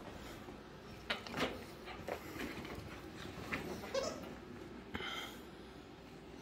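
Small dogs rummaging through and tossing plush toys on carpet: scattered soft knocks and rustles, with a brief high squeak about five seconds in.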